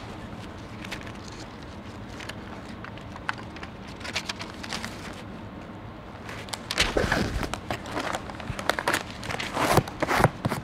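Foil tape pulled off its roll and pressed and rubbed down along a joint on foil-faced fiber glass duct board, a run of crinkling, scraping strokes. The strokes come in over the last four seconds after a quieter start with a few faint clicks.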